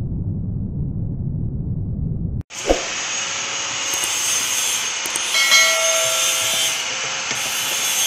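A low rumble that cuts off suddenly about two and a half seconds in. Then a steady hissing, rubbing noise of hand work on a steel drum, with a single knock just after the cut.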